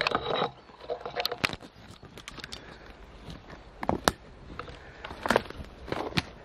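Scattered sharp snaps and crackles of dry twigs and spruce litter as someone moves through forest undergrowth, with a fly buzzing briefly at the start.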